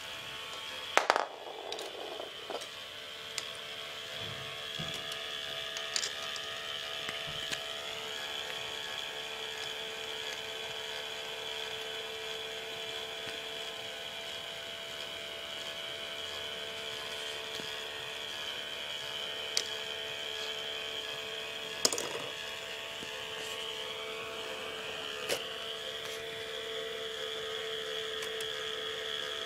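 K'nex ball lift running: a steady motor-and-gear whine from the plastic mechanism, with a few sharp plastic clacks of balls knocking against the track and lift, the loudest about a second in.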